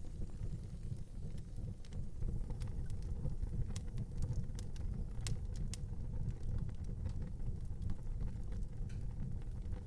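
Wood fire burning, with scattered sharp crackles and pops, thickest in the middle, over a steady low rumble.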